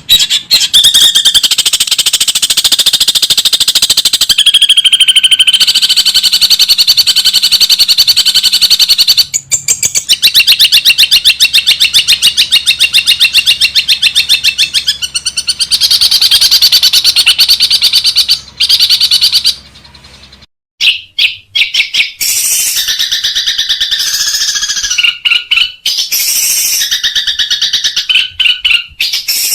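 Long-tailed shrike (cendet) singing loudly in fast runs of repeated harsh chattering notes. The song is broken by several abrupt gaps, as from spliced recordings.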